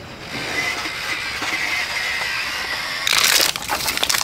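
Crinkling of a plastic food pouch being handled, with a short, louder rasp about three seconds in as it is torn or squeezed open, then irregular crackles.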